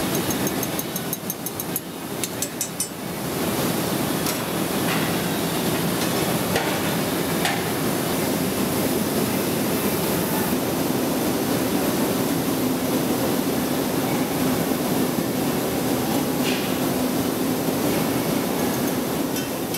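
Steady noise of a glassworks hot shop, its furnaces and oven blowers running, with a quick run of light ticks in the first few seconds and a few scattered clicks and taps later.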